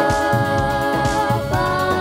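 Girls' group singing into microphones over musical accompaniment with a steady beat, holding one long note that steps to a new note about one and a half seconds in.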